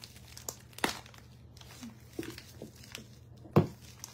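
Plastic bag of glitter crinkling as it is cut open with scissors and handled, with scattered clicks and one louder thump near the end.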